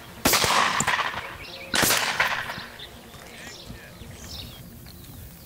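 Two shotgun shots about a second and a half apart, each trailing off with an echo, fired at a flushing cock pheasant.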